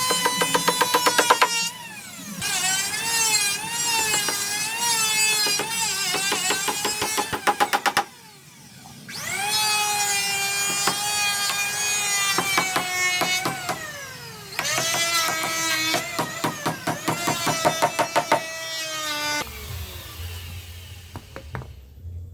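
Electric power tool cutting wood in three runs, its motor whine wavering and dropping in pitch under load, with rapid chattering clicks. Between passes the motor winds down and spins back up. Near the end only a low hum is left.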